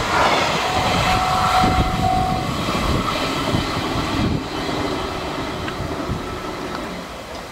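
Container freight train's wagons rolling past on the rails and receding, the rumble fading steadily away. A brief steady squeal sounds about a second in, and a few faint knocks come from the wheels.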